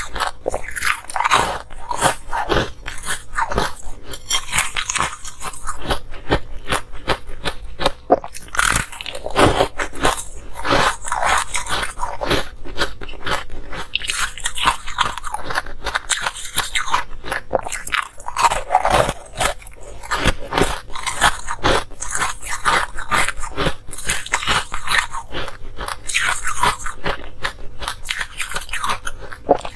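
Pieces of colored ice being bitten and chewed close to a clip-on microphone: a continuous run of sharp, crisp crunches and cracks.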